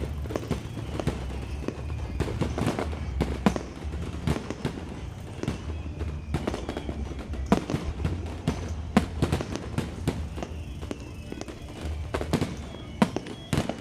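Aerial fireworks display: shells bursting in quick, irregular succession, sharp bangs and crackles over a continuous low rumble.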